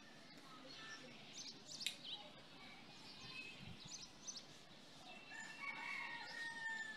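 Faint bird chirps, then a rooster crowing near the end.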